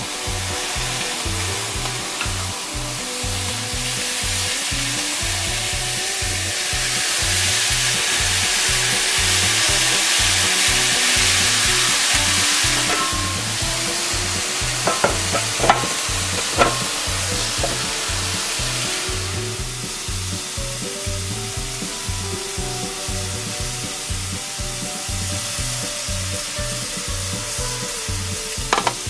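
Dried pollack sizzling in a double-sided grill pan. The sizzle swells for several seconds in the middle, and a few sharp clacks come a little past halfway. Background music with a steady beat plays underneath.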